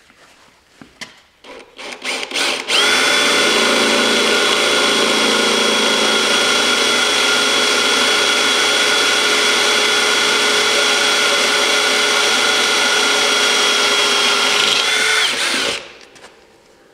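Handheld power drill boring holes through a metal snowplow blade: a few short trigger pulses, then a long, steady high-pitched whine of the motor and bit cutting metal that cuts off shortly before the end.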